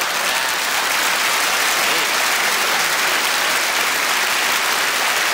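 Large theatre audience applauding, a dense, steady clapping.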